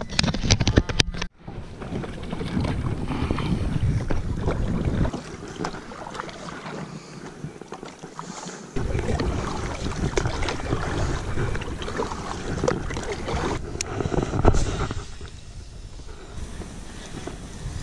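Kayak paddling on a pond: paddle strokes dipping in the water under wind rumbling on the action camera's microphone. A few sharp clicks come in the first second, and the sound changes abruptly at several cuts.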